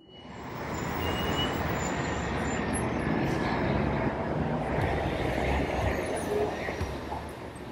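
Steady city street traffic noise, fading in over the first second.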